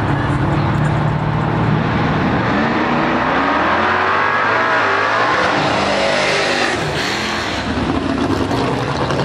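Drag race launch: the engines of a Camaro and a small pickup truck holding revs at the starting line, then accelerating hard down the strip, rising in pitch through the gears, with a brief dip near seven seconds in.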